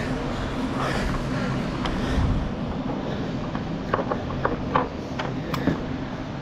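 Climbing rope being pulled up and clipped into a quickdraw carabiner, heard as a run of sharp clicks and rattles from about four seconds in, over steady rustling noise.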